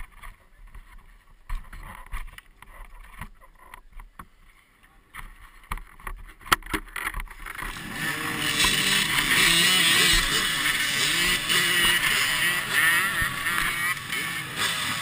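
A line of dirt bike engines starting up and revving together, loud and unsteady, beginning about halfway through; before that only scattered knocks and clicks.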